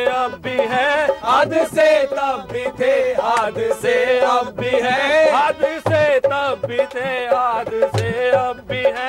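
A man singing a Hindi folk-style song with a wavering, ornamented melody over the low beats of a hand drum (dholak).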